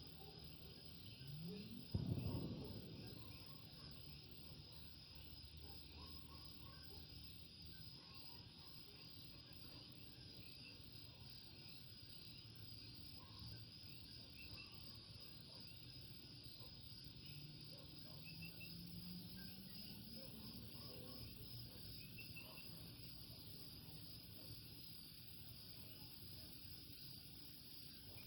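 Faint chorus of coquí frogs calling among a steady high insect trill. A short low thump about two seconds in is the loudest sound, and a faint low hum rises slowly in pitch later on.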